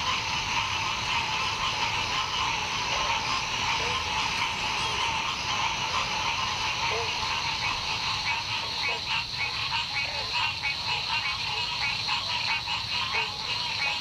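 Dense chorus of frogs calling, a steady layered din of many rapid pulsing calls, with scattered short, lower single notes throughout.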